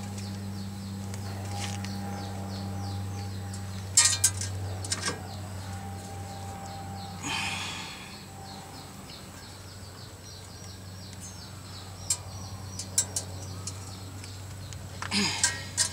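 Hand tools clinking and knocking on metal while working on the car's suspension: sharp clinks about four and five seconds in, a short scrape about seven seconds in, scattered clicks later and a cluster near the end. A steady low hum fades about eight seconds in, and faint bird chirping runs behind.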